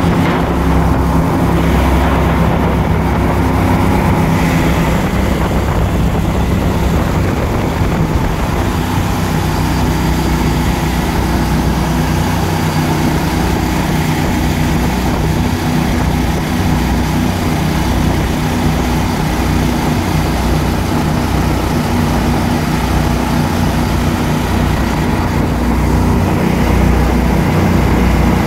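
Outboard motor on an aluminium sled boat running steadily at speed, with the rush of water and spray along the hull.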